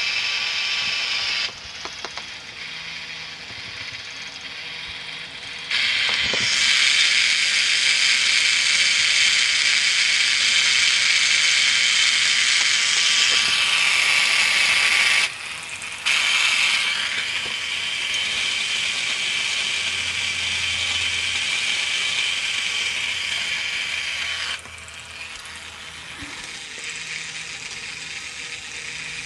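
Battery-powered K'nex motor driving a plastic K'nex gearbox, a steady whirring with the clatter of plastic gears meshing. The level jumps up and down sharply several times and is loudest through the middle.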